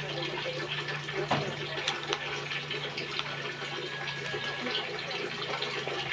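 A steady rushing, water-like noise with a low hum under it, and small scattered clicks and cracks of crab shell being picked apart by hand.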